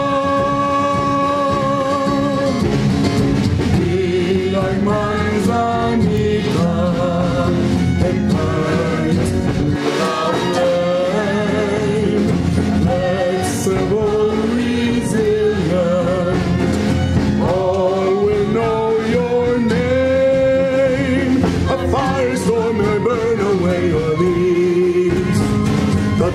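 A man singing a slow melody of long held notes with vibrato, over live band accompaniment.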